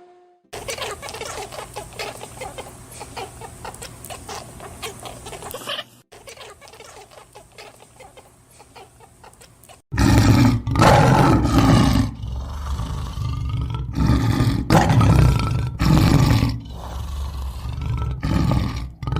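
Animal calls from a few edited clips: first a busy patter of short calls and clicks, then a quieter stretch, and from about halfway a series of loud, deep roars, each lasting about a second.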